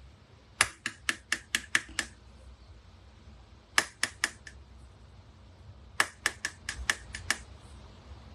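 Small spice bottle being tapped with the fingers to shake ground spice into a measuring spoon: three quick runs of sharp clicks, about five a second.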